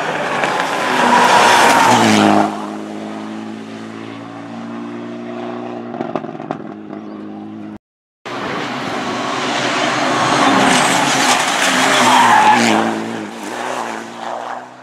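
Rally car at racing speed on a tarmac mountain stage, its engine at high revs as it goes by, then dropping to a lower, steadier note as it pulls away. After a cut, a second pass: the engine note rises to its loudest about halfway through, shifting pitch through the bends, and fades as the car goes round the corner.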